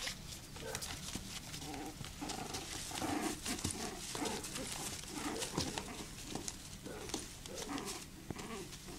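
A litter of young puppies play-wrestling, giving many short whines and yips, with frequent scratching and rustling as their claws scrabble on the plastic bin and pee pads.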